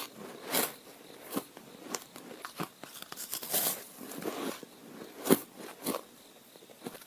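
Ice being bitten and crunched between the teeth: a string of sharp, irregular crunches about once a second, the loudest a little past five seconds in.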